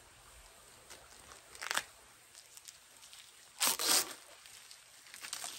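Pieces of trap wax being broken up and put into the dye pot: two short rough noises about two seconds apart, the second louder and longer.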